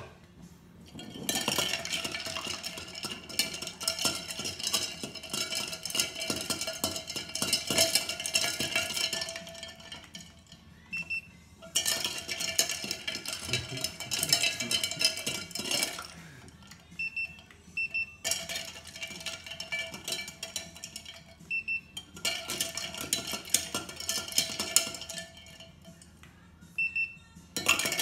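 Ice cubes clinking and rattling against a glass measuring jug as iced coffee is stirred with a metal probe thermometer, in several spells of a few seconds each with short pauses between. The stirring chills the coffee below the usual iced-coffee serving temperature.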